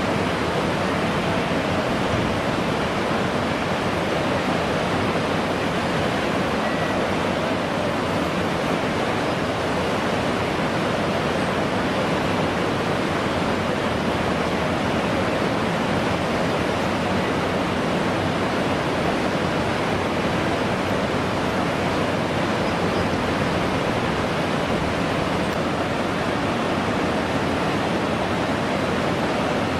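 Whitewater rapids rushing steadily, an even roar of churning water.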